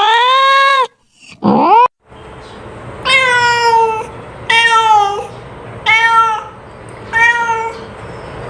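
Domestic cat meowing: a meow that cuts off abruptly, a short rising meow between two brief dead-silent gaps, then four separate meows about 1.3 s apart, each dropping in pitch at its end, over a low steady background hum.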